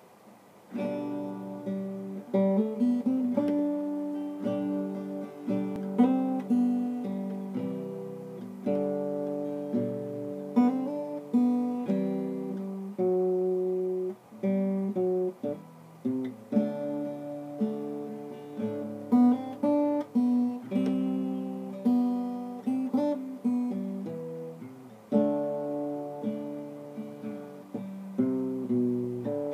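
A solo acoustic guitar playing chords, starting about a second in.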